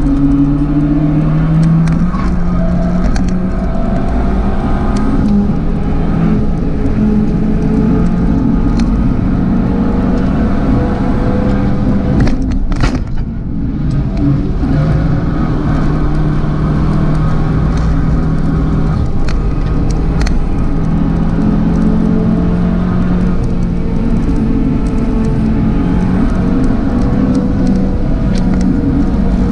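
Turbocharged Abarth 595's four-cylinder engine running under load at track speed, its note shifting up and down as the car accelerates and changes gear, with a brief break in the sound about thirteen seconds in.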